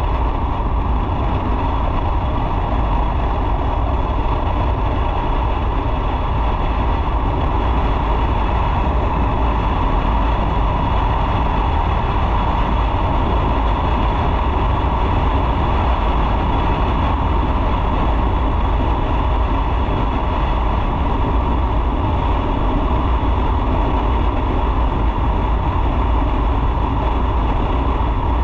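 A motorcycle on the move: steady, loud rush of wind on the microphone over the engine and road noise, with no change in pace.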